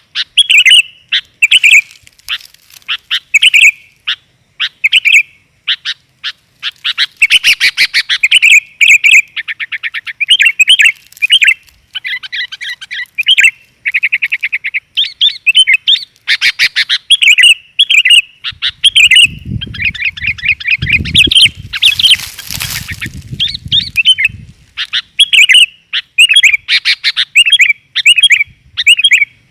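Kutilang (sooty-headed bulbul) calling busily: loud, repeated short chirps and rapid chattering trills with hardly a pause. A low rumble and a brief hiss come in about two-thirds of the way through.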